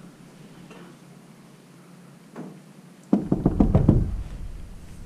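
A rapid run of sharp knocks and thumps starting about three seconds in and dying away within about a second.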